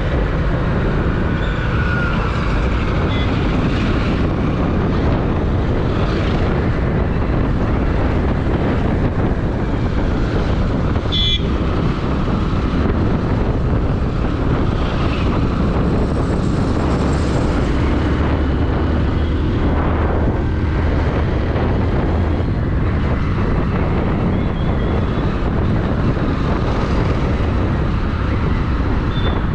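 Loud, steady rumble of vehicle and wind noise, with no let-up.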